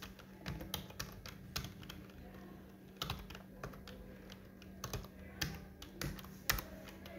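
Computer keyboard typing: an irregular run of short key clicks as a word is typed, over a faint steady hum.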